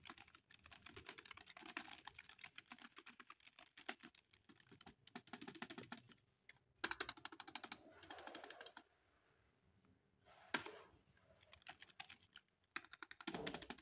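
Typing on a Punta backlit computer keyboard: a fast, faint clatter of key presses that runs dense for about nine seconds, breaks off, then comes back in short bursts.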